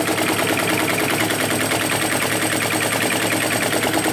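Hu SH-02 flame licker (vacuum) engine running, with a fast, even clicking clatter. It keeps going only because the burner flame sits at just the right spot, where half a millimetre makes a difference.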